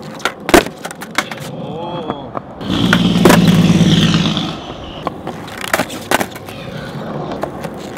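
Skateboard on an asphalt court during a nollie pop shove-it attempt: a sharp clack about half a second in, then a few lighter knocks of the deck and wheels. Wheels roll loudly on the asphalt for a second and a half or so, and two more clacks come about six seconds in.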